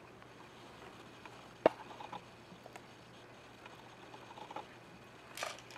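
Quiet room with a low steady hum; one sharp click about one and a half seconds in, a few fainter small clicks, and a short rustle near the end.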